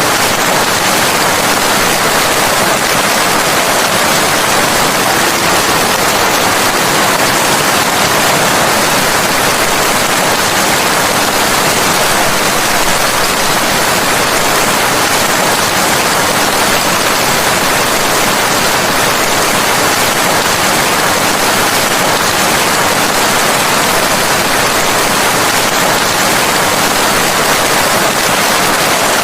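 Steady heavy rain, an even hiss with no separate drops, thunder or changes in level.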